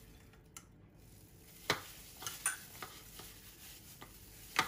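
A hand in a thin plastic food-prep glove tossing and squeezing julienned carrot in a bowl: a few soft, scattered rustles and crackles, the sharpest near the end.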